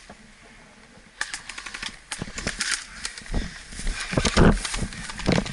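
Footsteps and rustling through dry brush and leaves: irregular crackles and clicks, with a cluster of heavier thuds from about three and a half seconds in.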